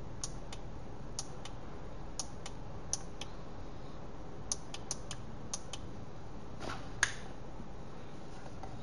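Light, sharp plastic clicks, about fifteen at irregular spacing, from a small ABS folding LED camping lantern being handled. A louder click with a short rustle comes about seven seconds in.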